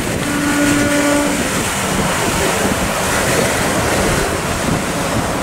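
Choppy sea and the rush of a passing motor cruiser's wake, with wind buffeting the microphone. A faint steady tone sounds briefly near the start.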